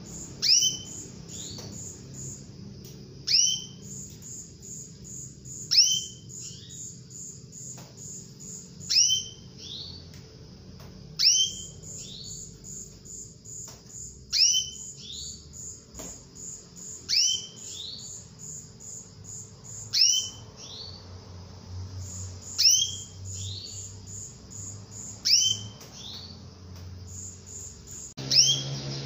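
Female canary giving a contact call to a male: a single high whistle sweeping downward, followed by a fainter second note, repeated about every two and a half to three seconds, about ten times. Under it runs a faint, fast, even high-pitched ticking, and music comes in near the end.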